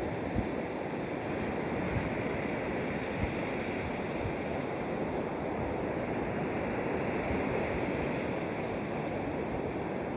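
Steady wash of sea surf, with wind on the microphone giving a few brief low buffets.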